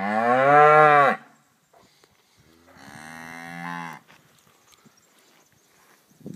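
Black cattle mooing twice: a loud moo of about a second and a half, then a second, quieter moo about two seconds later.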